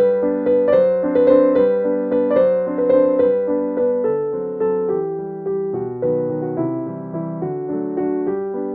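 Background piano music: a gentle melody of struck notes, a few a second, each dying away.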